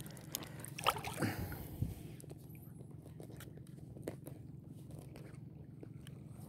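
A hand splashing in shallow seawater for about two seconds, with a few sharp clicks. Then only faint scattered ticks over a low steady hum.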